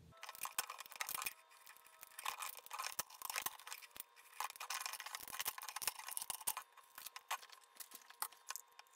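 3D-printed plastic support lattice being broken and peeled off a printed wheel: a dense, irregular run of small snaps, cracks and crackles.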